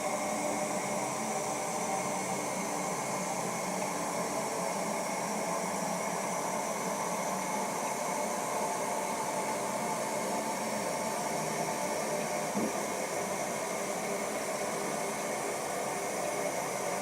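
Toilet water running in a steady, unchanging rush after a flush, typical of the cistern refilling through its fill valve.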